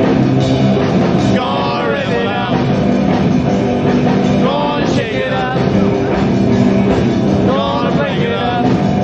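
Rock and roll band playing live: a male singer over electric guitars, bass and drums, in an early live recording.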